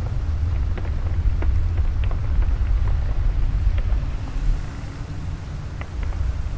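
Rain falling under a deep, continuous rumble of thunder, with scattered sharp crackles throughout. The rumble eases a little about two thirds of the way through.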